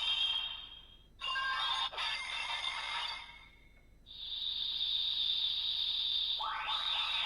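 Electronic sound effects played through the small speaker of an Ultraman Decker DX toy as an Ultra Dimension card is read: two short bursts of sound, a brief pause, then a steady high electronic tone with a rising sweep near the end.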